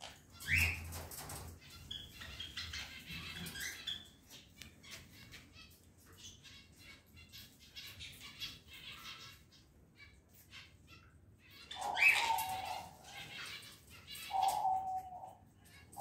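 Sun conures flapping and fluttering against the wire mesh of their cage, with rustling and clicks of claws on the wire. A short rising squawk comes about half a second in; louder calls come in the last few seconds, the loudest about three-quarters of the way through.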